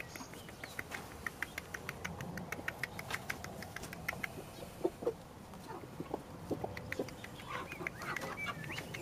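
A flock of hens clucking softly, a few short low clucks scattered through, over a fast run of high ticking that goes on throughout.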